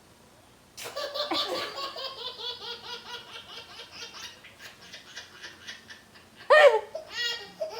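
Baby's belly laugh: a long run of rapid, pitched laughing pulses that slowly fades over about five seconds. Near the end comes a short, loud vocal burst.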